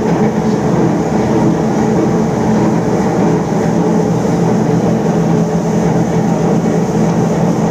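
Three-roll mill running steadily while grinding a white paste between its steel rollers, a loud, even mechanical drone with a steady low hum.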